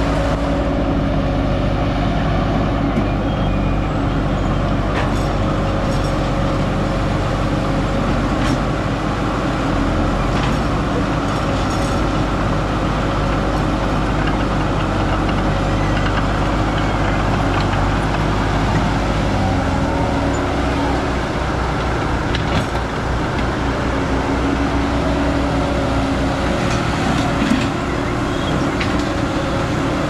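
Diesel engine of an old crawler excavator running steadily as it works its boom and bucket, with scattered short clanks. About twenty seconds in the engine note drops and changes.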